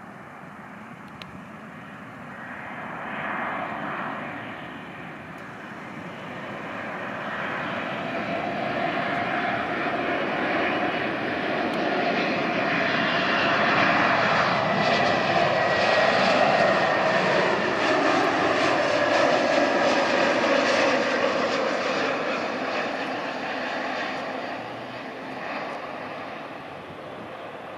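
Airbus A321neo's Pratt & Whitney PW1133G geared turbofans on landing approach, flying past. The jet sound grows louder for several seconds, peaks in the middle, then fades, with its whine falling in pitch as the airliner passes.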